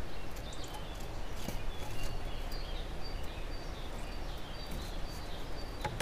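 Small birds chirping faintly in the background in short high notes, with a few light taps; near the end a woodpecker's beak knocks sharply on the wooden post.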